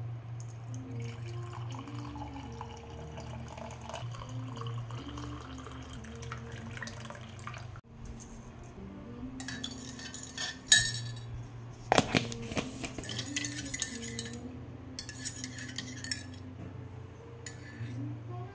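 Tableware handled on a stone countertop: a ceramic mug and cutlery clinking, with liquid poured and a spoon rattling in the mug. Two sharp clinks come near the middle. Soft background music and a low steady hum run underneath.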